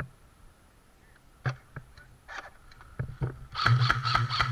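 A few scattered sharp shot-like clicks, then about three and a half seconds in an airsoft electric gun (AEG) opens up on full auto: a fast string of shots over the steady whine of its gearbox motor.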